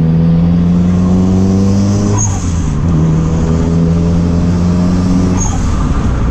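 Turbocharged Nissan SR20DET four-cylinder accelerating, heard inside the car's cabin: the engine note climbs slowly through a gear, drops at an upshift about two seconds in, climbs again and drops at a second upshift near the end. Each shift comes with a brief high blow-off valve release.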